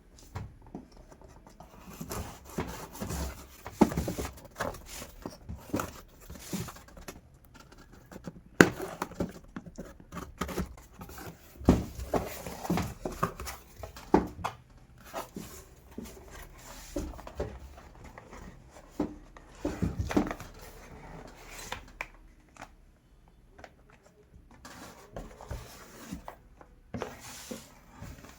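Packaging being handled and opened by hand: irregular rustling, tearing and scraping with scattered knocks, one sharp click about a third of the way in.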